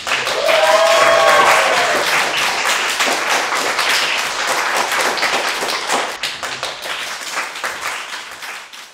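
A small audience applauding and clapping, with one voice cheering near the start. The clapping fades away toward the end.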